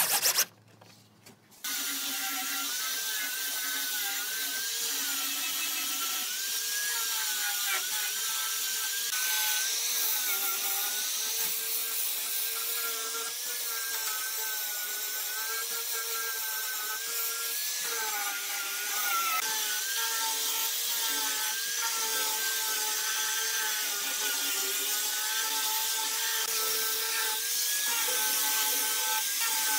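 A power tool running steadily against wood, its pitch wavering slightly under load. It starts about a second and a half in, after a short loud burst and a brief pause.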